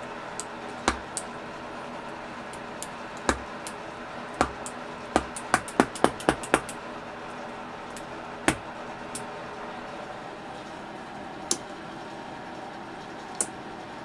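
Toggle switches and push buttons on a walnut and brushed-aluminium control panel clicked one at a time, a few single clicks then a quick run of about eight clicks around the middle, and a couple more near the end. A faint steady background noise runs beneath.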